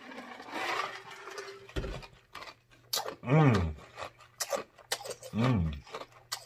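A man sipping and swallowing a drink from a glass jar, then two short closed-mouth 'mmm' hums of satisfaction, each rising and then falling in pitch, with lip smacks between them.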